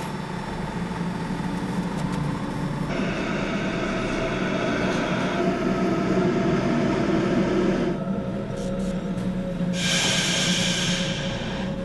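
Metro train running, a steady rumble with held electric motor tones that shifts in character twice, with a brief high-pitched whine about ten seconds in.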